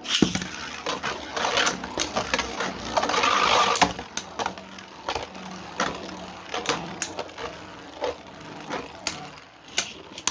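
Spinning tops launched into a plastic stadium: a sudden rip at the start, then a few seconds of grinding and scraping as they spin and clash, followed by scattered sharp clicks and knocks of the tops hitting each other and the stadium wall.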